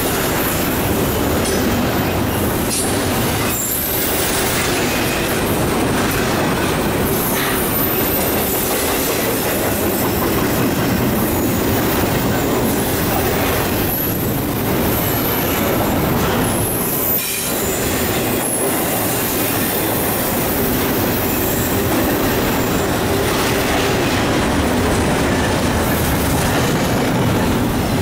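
Double-stack intermodal well cars of a freight train rolling past: a steady, loud rumble of steel wheels on rail, with brief high wheel squeals now and then.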